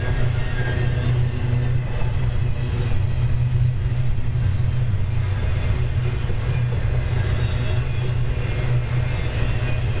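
Double-stack intermodal train's loaded well cars rolling past: a steady low rumble of steel wheels on rail.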